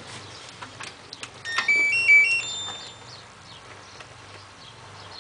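LG F1222TD washing machine's control panel: a click, then a short electronic jingle of quick high beeps alternating between two pitches and ending on a longer, higher note.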